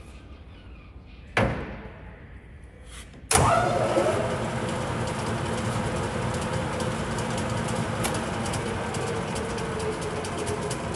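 Large engine lathe starting up: a sharp clunk about a second and a half in, then another about three seconds in as the spindle engages. After that the three-jaw chuck spins and the lathe runs steadily.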